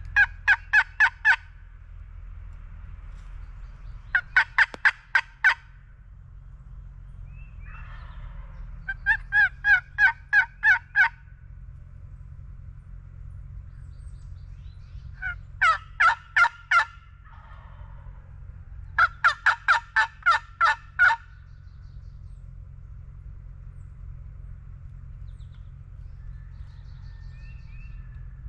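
Turkey yelping: five runs of six to nine evenly spaced notes, each run lasting one to two seconds, a few seconds apart.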